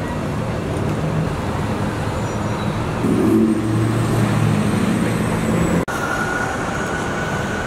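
Steady city street traffic noise. A heavy vehicle's engine runs louder from about three seconds in until an abrupt cut near six seconds; after the cut a faint steady whine sits over the traffic.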